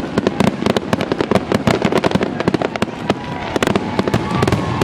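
Aerial fireworks display: a dense, rapid barrage of bangs and crackling bursts, with a few faint whistles in the second half.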